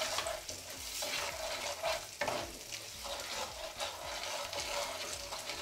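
Semolina, cashews, raisins and almonds sizzling in hot ghee in a nonstick kadhai, with a spatula stirring and scraping through the mixture in repeated strokes as the semolina is roasted to a light brown.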